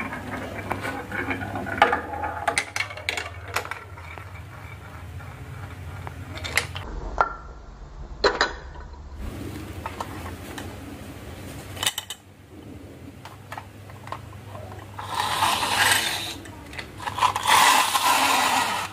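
Toy marbles and small toy vehicles rolling and clacking along a wooden marble-run track, with scattered sharp clicks. Near the end come two louder stretches of fast rolling, each about a second and a half long.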